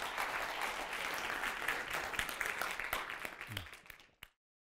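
Audience applauding, a dense patter of many hands clapping that fades and is cut off to silence about four seconds in.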